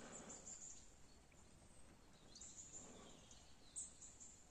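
Near silence: faint outdoor ambience with soft, short high-pitched chirps repeating throughout.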